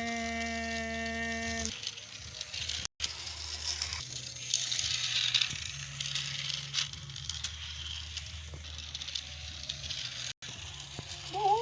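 Battery-powered toy train running along plastic track, a light rattling and clicking of its motor and wheels over a low hum. A steady pitched tone sounds for about the first two seconds.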